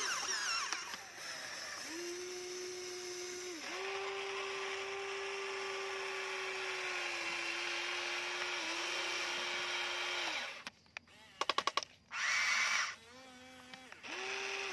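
Electric motors of a Huina RC toy excavator whining as the boom and bucket dig into dirt, stopping and starting several times and dipping in pitch as each movement ends. About three-quarters of the way through the whine drops out, followed by a quick run of clicks and a short, louder burst of noise.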